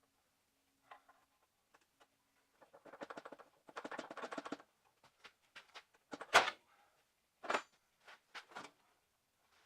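Hand tools working on metal under a vehicle: a couple of seconds of rapid clicking, then a few sharp metallic knocks, the loudest about six seconds in.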